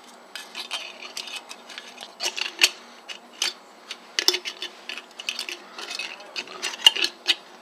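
Paperclip clicking and scraping against the tab and mouth of an opened aluminium drink can as it is hooked in and pulled up to close the opening: irregular small metallic clicks throughout.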